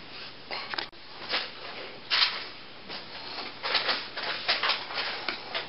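Scattered rustling and handling noises with a sharp click about a second in, as puppets and props are moved about between scenes.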